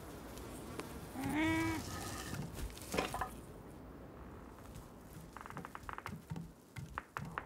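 A short, bleat-like animal cry about a second in, rising and falling in pitch. A sharp knock follows at about three seconds, and a quick rattle of clicks comes near the end.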